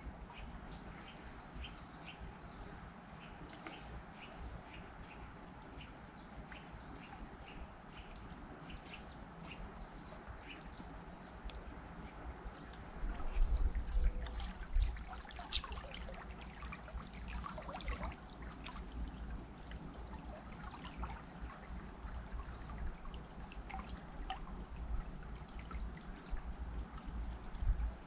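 River water flowing steadily, with birds chirping over it. About halfway through, a few seconds grow louder with a low rumble and sharp clicks.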